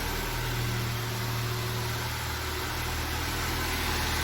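Honda Accord's engine idling steadily.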